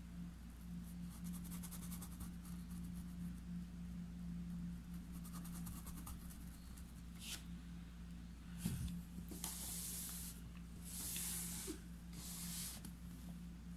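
Faint scratching of a small paintbrush dabbing and rubbing paint into cloth stretched in an embroidery hoop, over a steady low hum. About two thirds of the way in come a knock and then three louder rustling swishes.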